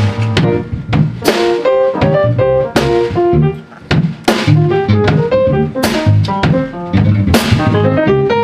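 Drum kit and electric bass playing live together: a busy run of melodic notes over the drums, with cymbal crashes. The band cuts out briefly a little before the middle, then comes straight back in.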